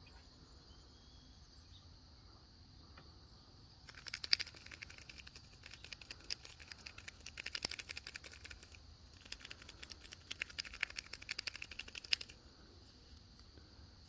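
A young chipmunk's claws scrabbling as it climbs a post: rapid, scratchy clicking that starts a few seconds in, breaks off briefly midway and stops shortly before the end. A steady high insect trill runs underneath.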